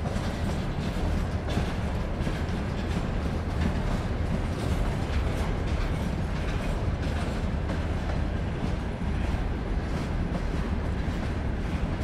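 Freight train wagons rolling past: a continuous low rumble with the clatter of wheels on the rails and scattered metallic knocks between the wagons.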